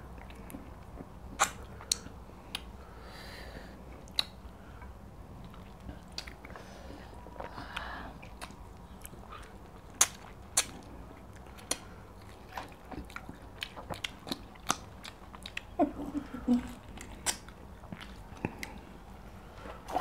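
People chewing and biting close to a clip-on microphone, eating fufu and ogbono soup by hand and biting into a large piece of meat, with many scattered sharp lip smacks and mouth clicks.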